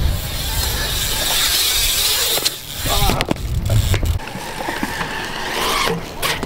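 BMX bikes riding a concrete skatepark bowl: tyres roll with a low rumble and hiss, and a few sharp clacks of the bikes hitting the concrete come about two and a half, three and six seconds in.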